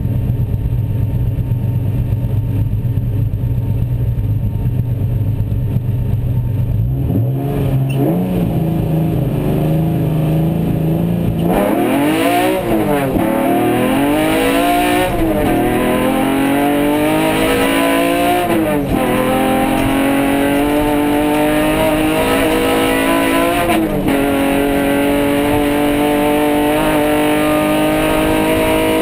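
Off-road race car's engine heard from inside the cabin: it idles, then is held at raised revs from about seven seconds in. Just before halfway it pulls away hard, revving up through the gears with four upshifts, each one a sudden drop in pitch.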